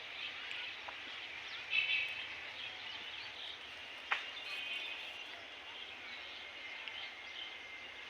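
Birds chirping and calling over a steady outdoor hiss, with a brief trill about two seconds in and a short sharp sound about four seconds in.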